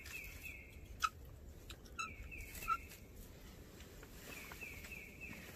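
A songbird singing in the woods at dawn: short phrases of about four whistled notes, each slurring downward, repeated roughly every two seconds. Two short, sharp clicks come about one second in and near the middle.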